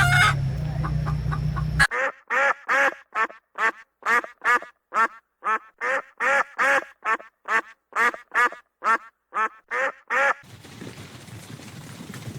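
A waterfowl giving a steady run of about twenty short calls, two to three a second, that stops about ten seconds in. Before the calls begin, the tail of a previous clip is heard for about the first two seconds: chicken sounds over a low hum. After the calls there is a faint, low rumbling background.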